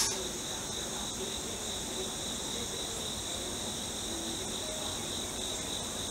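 A steady chorus of field insects: a continuous, high-pitched shrill in two layers of pitch that runs unbroken.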